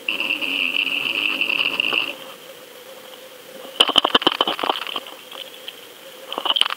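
Sinker and rig knocking and rattling against the rocky sea floor, heard through an underwater camera's housing. A steady high whine fills the first two seconds, a burst of rapid knocks comes about four seconds in, and a shorter cluster of knocks follows near the end.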